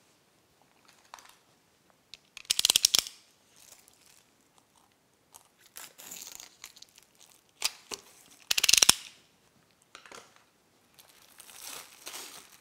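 Clear plastic wrapping being torn and pulled off plastic case panels: two short, loud crackling rips, about two and a half seconds in and again near nine seconds, with softer crinkling between and toward the end.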